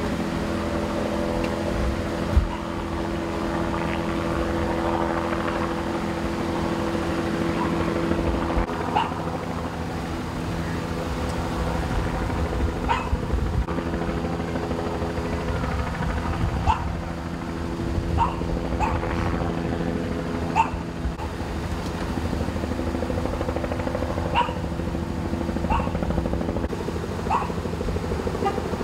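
A dog barking in single sharp barks every second or few seconds, over a steady engine hum.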